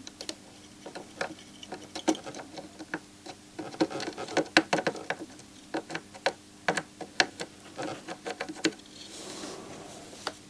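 Irregular small clicks and taps of a soldering iron tip and tweezers on a circuit board while a surface-mount chip is soldered in place, busiest in the middle. A faint steady hum runs underneath, and a soft hiss comes in near the end.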